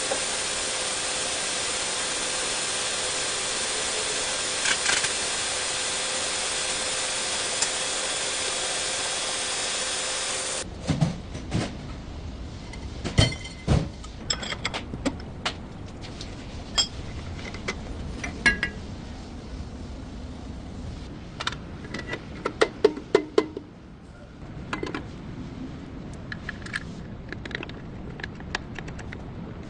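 A steady hiss with a hum runs for about ten seconds and then cuts off abruptly. After it come irregular sharp metallic clinks and knocks of tools and parts being handled, some ringing briefly, with a quick cluster about two-thirds of the way through.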